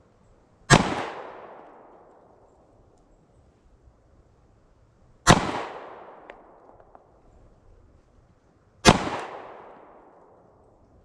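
Three slow, deliberate pistol shots from a SIG Sauer P365 XL Spectre Comp 9mm, spaced about four seconds apart, each crack trailing off in a second-long echo.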